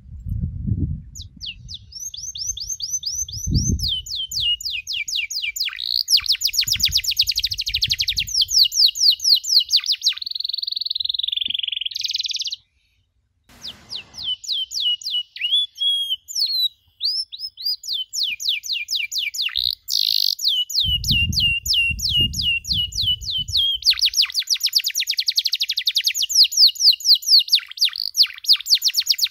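Domestic canary singing: fast trilled runs of repeated high chirping notes, with one longer held note that rises near the middle. After a second's pause the song goes on with more rapid trills. A few low rumbles sound underneath at the start and again later.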